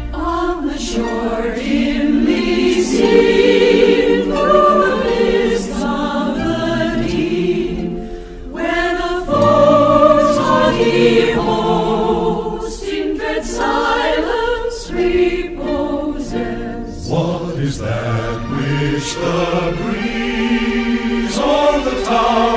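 Background music: a choir singing held, slowly changing chords, with occasional sharp percussion hits.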